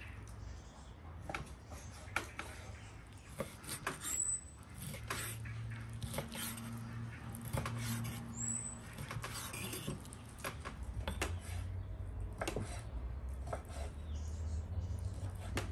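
Kitchen knife chopping raw beef heart into cubes on a wooden cutting board: irregular knocks of the blade against the board. Two short high chirps come through about four and eight seconds in.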